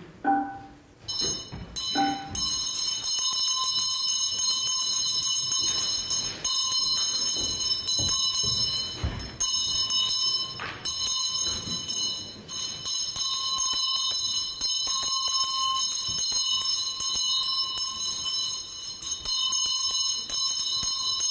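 A bell ringing continuously as a rapid, high jangle for about twenty seconds, starting about a second in. It is preceded by two lower struck tones right at the start.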